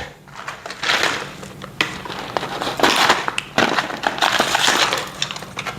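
Plastic hardware packaging crinkling and crackling in a few irregular bursts as the J bolts for the chair's backrest are taken out, with a few small sharp clicks between them.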